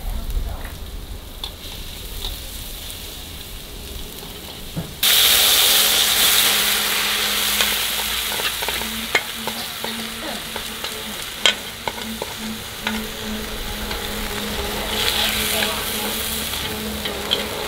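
Frog legs sizzling in hot oil in a steel wok, stirred with chopsticks that click against the pan. The sizzle comes in suddenly and loud about five seconds in and runs on steadily.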